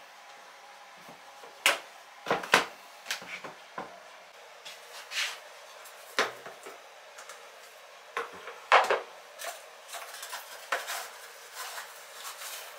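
A series of light plastic clicks and knocks: a plastic laundry basket handled on a countertop, then the lid of an airtight container of powdered laundry detergent opened and a plastic scoop dug into the powder.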